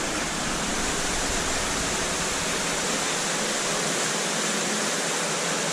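Steady rush of water falling and running in a cave stream passage.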